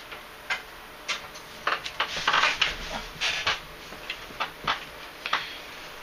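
Scattered light clicks and brief rustling scuffs, about ten short sounds at uneven intervals: handling noise as things are moved about by hand.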